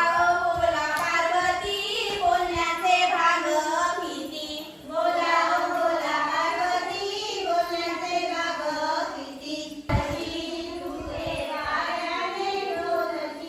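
Group of women and girls singing a fugdi folk song together as they dance in a circle, high voices in chorus, with short breaks between phrases about five and ten seconds in.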